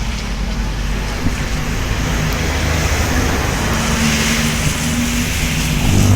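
Bus engine running with road and traffic noise: a steady low rumble under a broad hiss.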